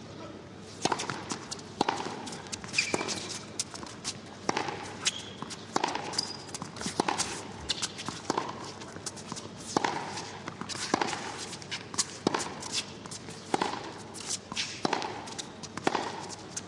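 Tennis rally: a racket hitting the ball back and forth, sharp pops about once a second, with a few short shoe squeaks on the court between shots.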